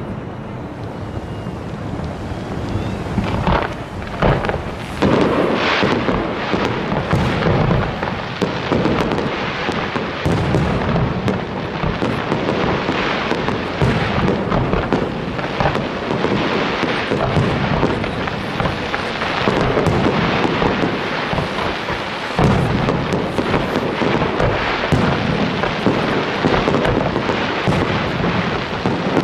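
Aerial firework shells and comets bursting in a dense, unbroken barrage: many overlapping bangs that run together into a continuous rumble.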